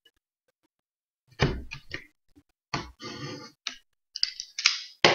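Cardboard box being handled and its plastic shrink wrap torn open: a knock about a second and a half in, then a run of short crackling rips and rustles.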